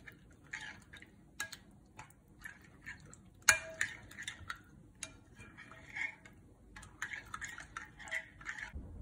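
Metal spoon stirring a thick yogurt marinade in a glass bowl: irregular clinks and scrapes against the glass. The loudest clink comes about three and a half seconds in.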